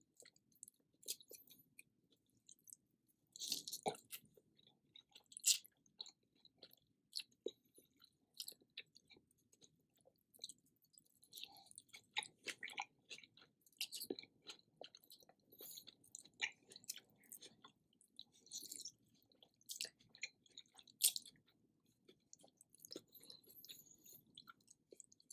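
A person chewing food close to the microphone: faint, irregular wet mouth clicks and chewing noises.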